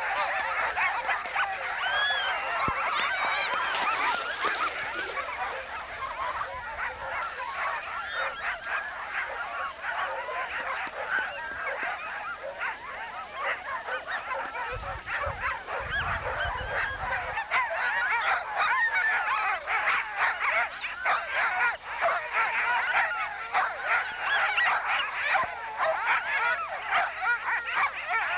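Many sled dogs yelping and yipping together in an unbroken, high-pitched chorus of overlapping squealing calls, the excited din of dog teams waiting to race.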